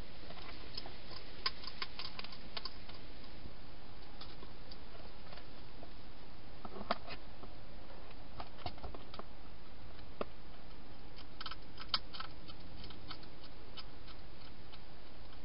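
Irregular small clicks and crunches in loose clusters from a wild hedgehog moving about and feeding inside a clear plastic feeding box, over a steady hiss.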